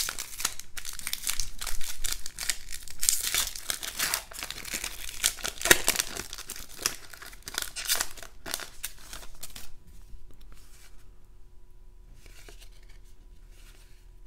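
Foil trading-card pack wrapper being torn open and crinkled by hand: a dense crackling for about ten seconds with a few sharper rips. After that, only faint soft rustles as the cards inside are handled.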